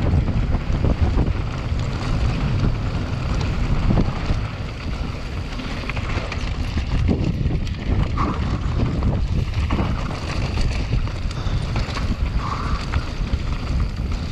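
Mountain bike descending a dry, rocky trail at speed: wind buffeting the microphone over a steady rumble of tyres on dirt and gravel, with frequent short knocks and rattles from the bike over rocks.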